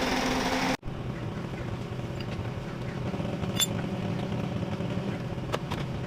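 A loud buzzing machine sound cuts off abruptly just under a second in. After it an engine runs steadily at idle, with a few light clinks.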